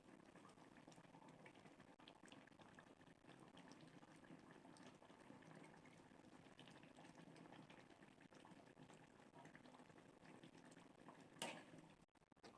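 Food bubbling steadily in a pan on the stove, faint, with a brief clatter near the end.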